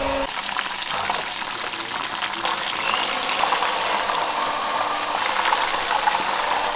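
Breaded chicken pieces deep-frying in hot oil in a pan, a steady sizzling full of fine crackles. A brief steady hum cuts off just after the start.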